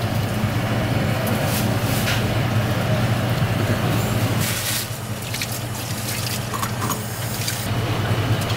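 Steady low machine hum of a kitchen background, with a few brief high clicks and rustles from handling on the board.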